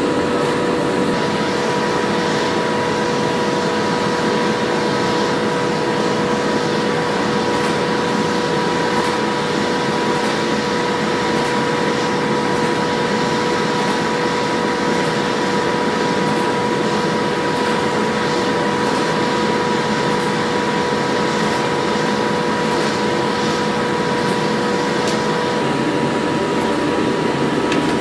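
A machine running steadily with a constant whine over a noisy hiss; one of its tones drops out near the end.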